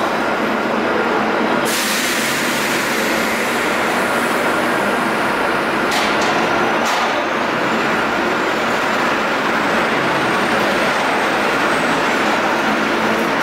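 Electric suburban train standing at the platform with its auxiliary machinery running: a loud, steady hum and hiss, with two short clicks about halfway through.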